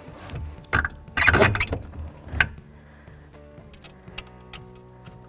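Steering column parts, with their plastic switch housings, clunking and rattling as they are shifted by hand into place under the dash: a few sharp knocks and a longer rattle in the first two and a half seconds. After that only faint steady tones remain.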